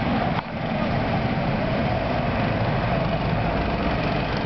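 Go-kart engines running steadily as karts drive round the track, with a brief dip about half a second in.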